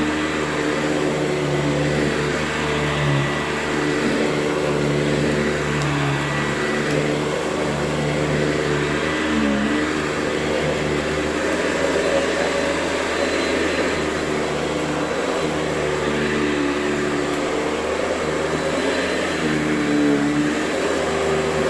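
Hoover Convertible U4345 upright vacuum cleaner running steadily, its motor hum wavering in pitch now and then. It is fairly loud, not the quietest of vacuums.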